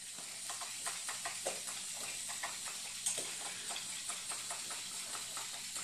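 Faint, irregular light taps and clicks of wooden Jenga blocks being nudged in the tower, over a steady hiss.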